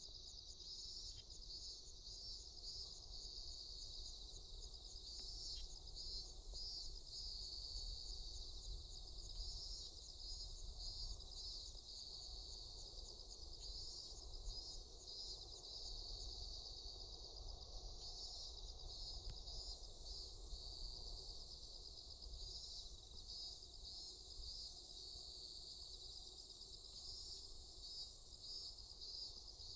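A faint chorus of insects: a steady, rapidly pulsing trill, with a higher chirp repeated in short groups of three to five every few seconds, over a low background rumble.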